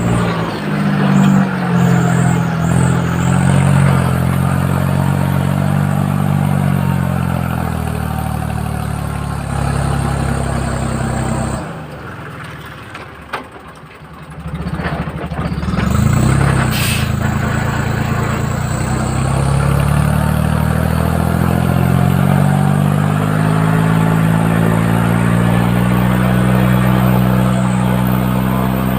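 Farm tractor engine running, its pitch slowly rising and falling with the throttle. About twelve seconds in it drops to a low, quiet idle for a few seconds, with one short click, then speeds up again and runs steadily to the end.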